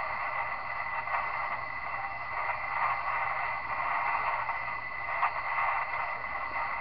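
Kenwood R-1000 shortwave receiver being tuned across the 40-metre band: a steady hiss of band static from its speaker with a thin, steady whistle running under it.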